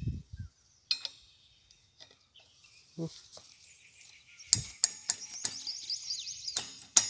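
Scattered metal clicks and knocks of a spanner and brass fittings being worked on a gas cylinder's charging valve. From about halfway a faint high hiss runs for a couple of seconds, with thin chirps over it.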